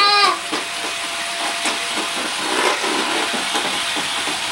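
Electric hand mixer running steadily in a bowl, a continuous whirring hiss as it whips cream.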